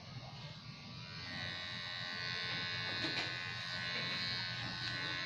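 Electric hair clippers buzzing steadily, growing louder from about a second in as they are run over the side of the head.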